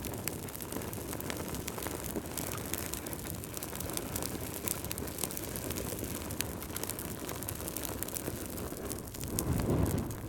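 Wood fire in a fireplace burning, with many small sharp crackles and pops over a steady low rush of flame, and a brief louder low surge near the end.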